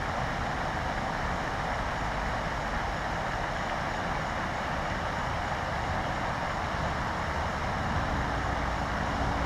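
Steady outdoor background noise: an even, low rumble and hiss like distant road traffic, with a faint hum joining near the end.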